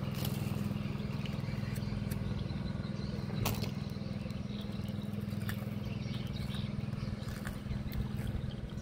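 A small engine running steadily with a low, even drone, and a single sharp knock about three and a half seconds in.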